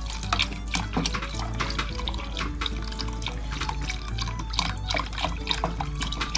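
Chicken broth being poured into a soup pot, with irregular splashing and trickling, over soft background music.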